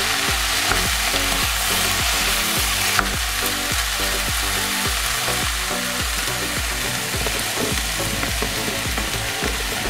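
Diced vegetables (potatoes, carrots, kohlrabi, onion and red pepper) sizzling steadily as they fry in oil in a pan, with a spatula stirring through them and knocking lightly now and then.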